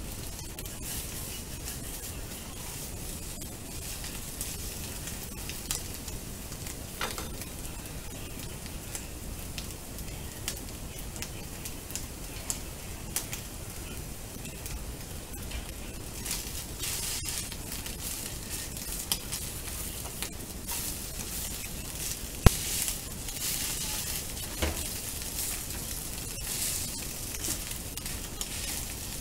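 Scrambled egg and rice sizzling in a hot nonstick frying pan, a steady hiss with scattered crackles as it is stirred, and one sharp knock about three quarters of the way through.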